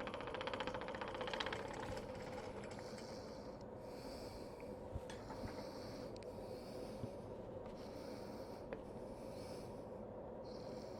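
Wood lathe running slowly with a steady hum, while a turning tool takes very light cuts on black walnut, giving faint scraping now and then.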